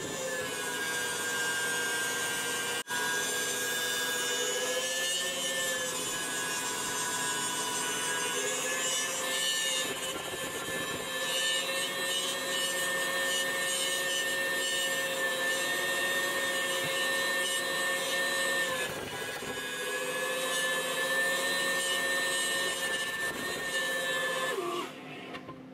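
KitchenAid stand mixer's motor whining steadily as it whips a thick protein fluff in a steel bowl. Its pitch sags briefly a couple of times, then winds down and stops near the end as it is switched off.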